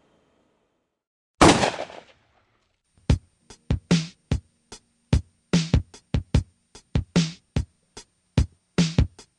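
A single loud gunshot sound effect about a second and a half in. About three seconds in, an electronic drum-machine beat starts and keeps going.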